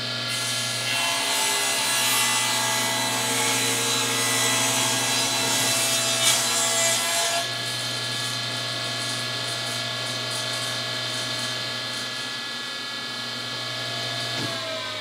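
Table saw with its blade tilted 5 degrees ripping a bevel in maple, with the offcut trapped between fence and blade (a setup that risks kickback). There is a sharp knock about six seconds in, and the sawing stops about a second later. The motor then runs free, and near the end the saw is switched off and its pitch starts falling as the blade spins down.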